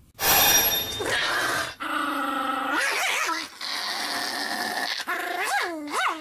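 A small fluffy puppy growling and barking in drawn-out snarls, with a couple of short yelps that rise sharply in pitch near the end.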